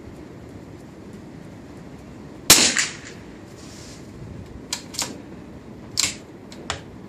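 A single crack from a CZ 452 .22 LR bolt-action rifle about two and a half seconds in, followed over the next few seconds by several smaller sharp clicks as the bolt is worked. Steady wind noise runs underneath.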